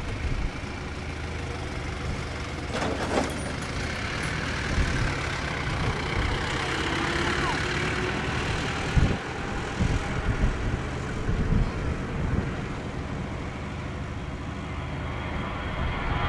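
Twin jet engines of an Airbus A320 at takeoff thrust, heard from beside the runway as a steady rushing noise that grows louder near the end as the jet lifts off and climbs toward the listener.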